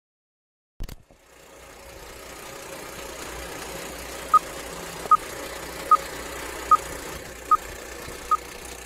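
Old film-projector sound effect over a film-leader countdown: a click, then steady mechanical whirring with crackle. From about four seconds in, six short identical beeps come evenly, a little under a second apart, one for each countdown number.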